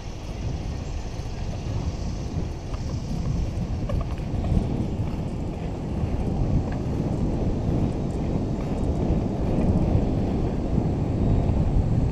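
Wind buffeting the microphone of a camera moving along a road, with road noise underneath: a low, uneven rush with no engine tone, growing somewhat louder in the second half.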